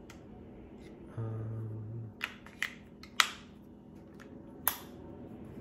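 Battery-powered handheld milk frother running in a cup of water, a steady whirring hum for about a second before it stops. Then four sharp clicks and knocks, the loudest about three seconds in.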